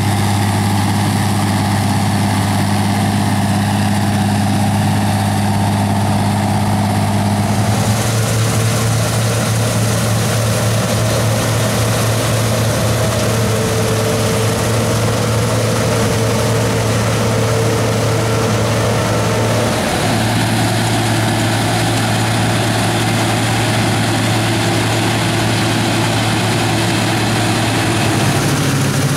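Diesel engines of wheat-harvest machinery running steadily at a constant pitch. The engine note shifts abruptly about eight seconds in and again about twenty seconds in.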